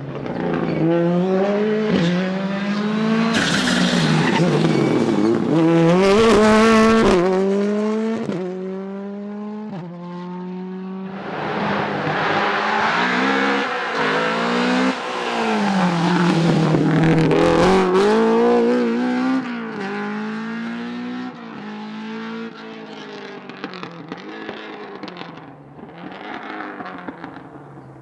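Rally car engines at full throttle on a special stage. The engine note climbs and drops again and again through gear changes, is loudest twice as cars pass close, and fades away near the end.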